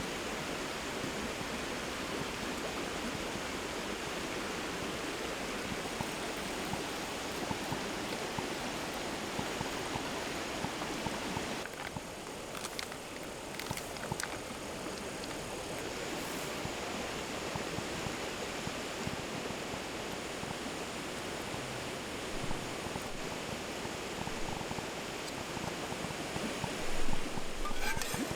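Steady rushing noise, with a few light clicks about twelve seconds in and a brief louder knock near the end.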